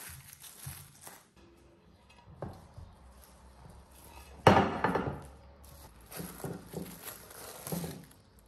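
Plastic cling wrap crinkling as it is handled, with one loud knock about halfway through as the upturned metal loaf pan is set down on a ceramic plate, then more crinkling of the wrap.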